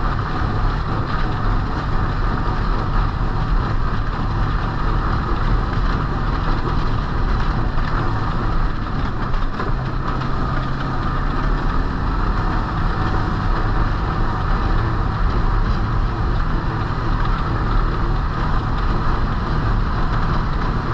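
Snowmobile engine running steadily while riding, a loud, even drone that holds at much the same pitch throughout.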